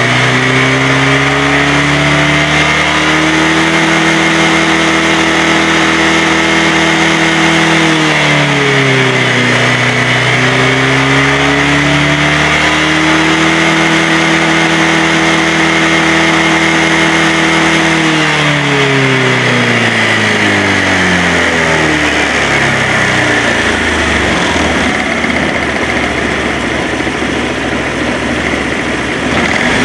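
Motorcycle engine revved up and held at a steady raised speed, dipping briefly once, then let back down to idle and raised again at the end. The mechanic suspects a clogged catalytic converter, with the oxygen-sensor reading locking at a fixed value at these revs.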